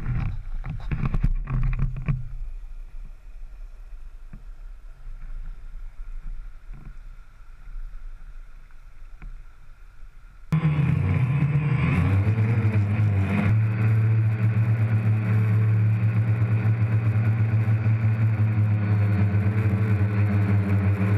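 Faint splashing and water noise while the camera lies at the creek's edge; then, about ten seconds in, it cuts abruptly to the loud, steady hum of a DJI Phantom quadcopter's motors and propellers in flight.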